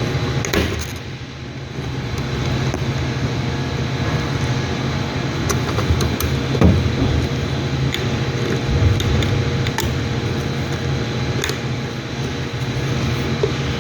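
Steady mechanical hum of a running machine or fan, with scattered light clicks and knocks from fuel pump module parts being handled and fitted together.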